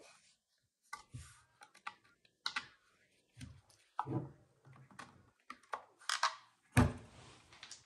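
Irregular clicks, taps and light knocks of hands working a forward grip and its screw on the rail of a Kel-Tec KSG shotgun, with one louder thump near the end.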